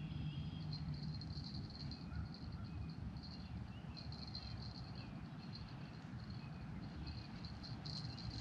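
Small birds chirping and twittering in quick, irregular runs over a steady low rumble.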